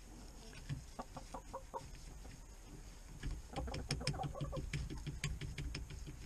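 Backyard ISA Brown hens clucking in short, soft calls. A busier stretch of calls mixed with quick sharp clicks comes in about halfway through.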